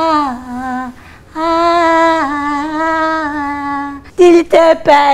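A woman singing in long held, wailing notes that slide down in pitch, with a short break about a second in. About four seconds in, her voice breaks into a few short, loud, choppy sounds.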